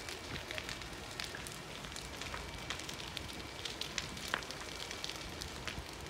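Building fire crackling and popping irregularly over a steady rushing noise, with one louder pop about four seconds in.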